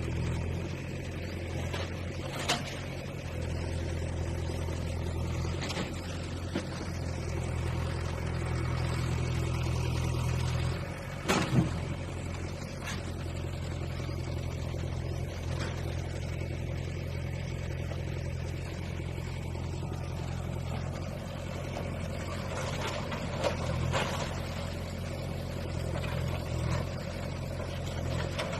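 Bulldozer engine running steadily, with a few sharp knocks and clanks during demolition work, the loudest about eleven seconds in.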